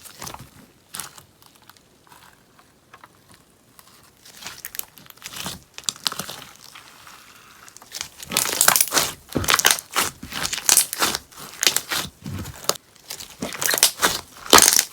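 Crackly beeswax slime being worked by hand, popping and crackling: scattered pops at first, then dense crackling from about eight seconds in.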